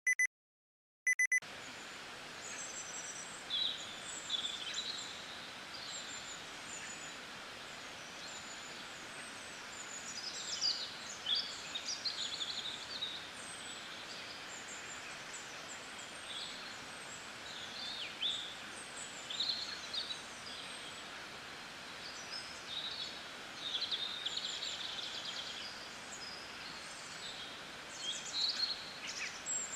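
Birds chirping and trilling over a steady background hiss, opening with two short electronic beeps in the first second or so.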